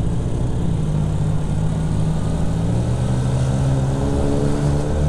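Suzuki Spin 125 scooter's single-cylinder engine running under way, its pitch rising steadily over the second half as the scooter accelerates.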